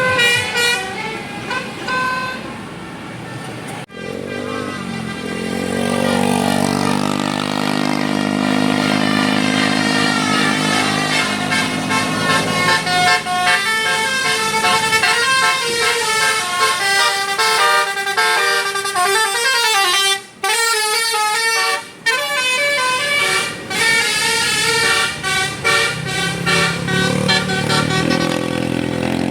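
A bus's telolet basuri multi-trumpet air horn playing a tune. It sounds a stepped series of changing notes, with a long low held chord before the quicker notes, and it breaks off briefly twice about two thirds of the way through.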